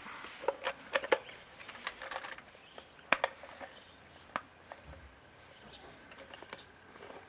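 Hard plastic parts of a fuel pump module clicking and knocking as they are handled and fitted together by hand: an irregular scatter of sharp clicks and taps, busiest in the first three seconds.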